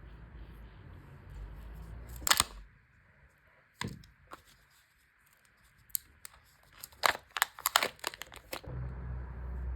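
Kinder Joy packaging being opened by hand: a short loud tear about two seconds in, then a single click, then a quick run of sharp plastic clicks and crackles.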